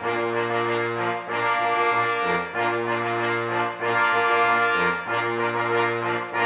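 Background music: brass instruments playing slow, sustained chords over a bass line, the chords changing about once a second.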